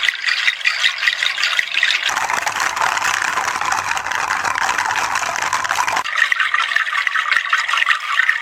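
Dried seed and fruit-shell rattles shaken continuously in a dense, bright rattle. About two seconds in, the sound changes to a deeper, hollower rattle from a different seed rattle. About six seconds in, a bright, dense mixed-seed rattle comes back.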